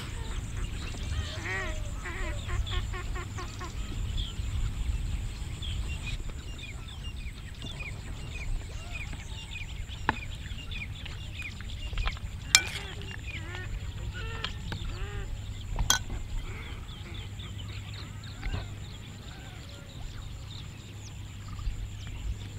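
Birds calling over and over in short chirps and squawks, with a steady low rumble underneath. A few sharp clinks stand out about halfway through.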